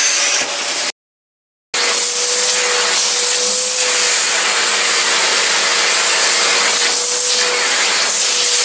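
Eureka Forbes Xforce vacuum cleaner running steadily, a loud rush of air with a constant whine from its motor. The sound drops out completely for under a second about a second in, then carries on unchanged.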